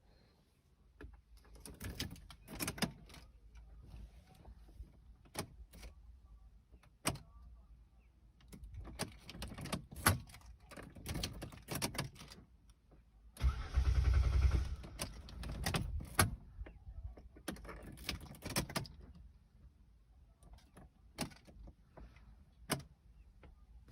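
Keys rattling and clicks of switches and trim inside a Hyundai Santa Fe. About halfway through there is a loud burst of about a second and a half as the key is turned and the starter cranks the engine.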